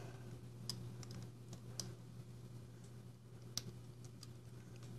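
A few scattered light clicks and taps of small metal parts being handled and fitted: a titanium knife scale, washer and pivot hardware set in place by hand.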